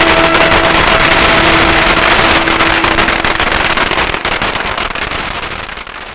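A string of firecrackers crackling in rapid, dense bursts, with a held musical tone under the first half. The sound fades out near the end.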